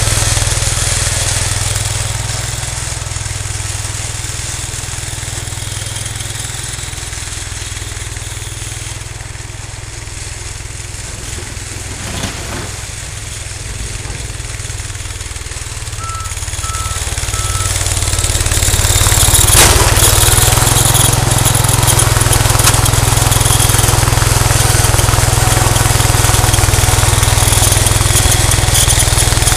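Cub Cadet 149 garden tractor's single-cylinder engine running steadily as it drives with its front plow blade. It fades as the tractor moves away and grows loud again as it comes back close, with a sharp knock about two-thirds of the way through.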